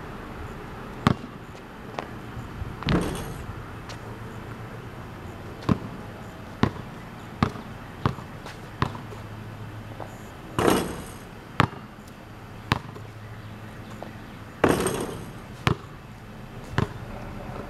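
Basketball bouncing on a concrete driveway: single sharp bounces at irregular gaps, with a quick run of dribbles near the middle. Three louder, longer rattling hits, about three seconds in, at ten seconds and near the end, come from shots striking the portable hoop's rim and backboard.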